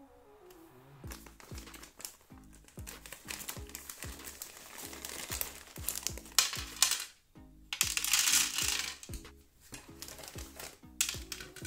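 Small plastic Battleship game pegs clicking and rattling as they are tipped out of a plastic bag into the game's storage tray, with the bag crinkling, loudest in the middle of the clip. Background music with a steady beat plays throughout.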